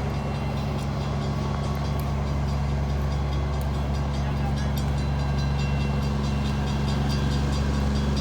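Large diesel engine running steadily at idle: an even low hum that grows slightly louder over the few seconds.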